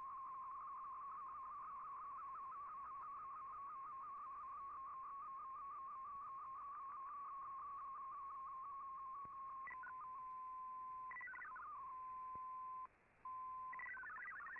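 MFSK digital-mode shortwave signal from a radio receiver: a single tone warbling rapidly as an MFSK picture is sent. About ten seconds in it turns to a steady tone with brief breaks and short higher chirps, and near the end it becomes a fast jumble of several stepping tones as MFSK text data starts.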